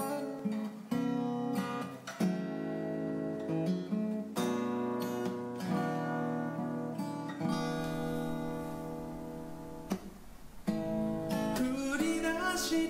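Background music: a song's instrumental intro led by strummed acoustic guitar chords, dipping briefly about ten seconds in before going on.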